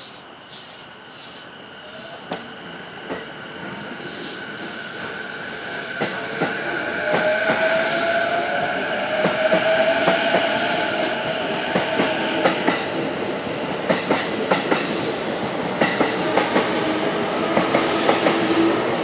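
JR E233-0 series electric commuter train pulling away from the platform. Its inverter-driven traction motors whine, rising in pitch as it accelerates, and wheel clacks over the rail joints come louder and quicker.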